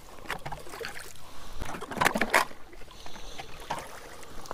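Drill-powered ice auger cutting through lake ice: irregular scraping and crunching of the blades in ice and slush, loudest about two seconds in.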